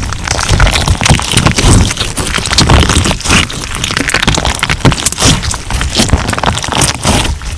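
Crunch slime being squeezed and pressed, making a dense, continuous run of loud crackles and pops.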